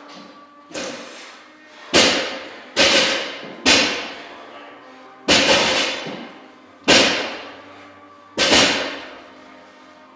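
Barbells loaded with rubber bumper plates for 275-lb deadlifts being set down hard on a concrete floor: seven heavy thuds at uneven intervals, the first softer, each with a short echoing tail in the bare garage.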